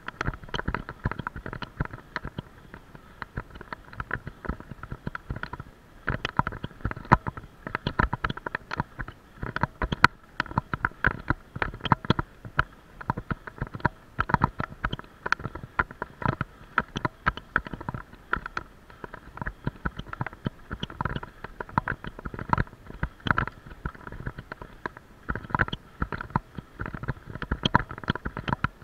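Continuous irregular rattling and knocking, many quick clicks in close succession, from a camera mount jolting on a moving vehicle over a bumpy road.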